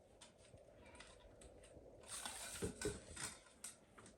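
A tripod being handled and adjusted: faint mechanical clicks and rattles from its parts, busier about two seconds in.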